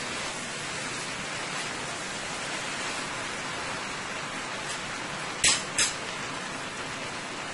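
Bora (long beans), chicken and potatoes frying with a steady sizzle in a pot while being tossed with a spatula. About five and a half seconds in there are two sharp clicks, the utensil knocking against the pot.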